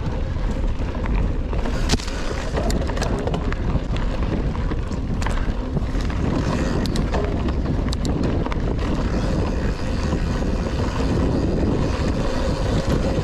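Wind rushing over the helmet camera's microphone as a Rockrider XC 900 mountain bike rolls along a forest trail, with scattered sharp clicks and knocks from the bike over bumps.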